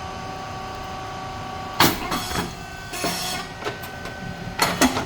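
Rice cake puffing machine running with a steady hum. About two seconds in, a sharp pop as the heated mould opens and the rice cakes puff, followed by a short hiss. Another sharp, clattering burst comes near the end.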